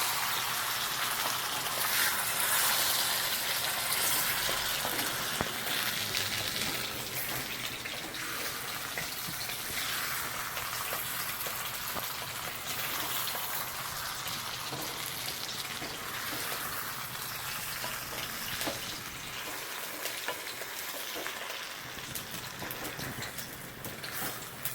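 Chicken pieces in masala sizzling in oil in a pan on low flame, stirred and turned with a spoon, with scattered light scrapes. The sizzle is a little louder in the first few seconds.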